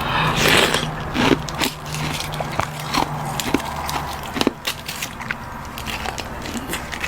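Frozen buckwheat-tea ice cracking and crackling: scattered sharp snaps, with a rustling burst about half a second in.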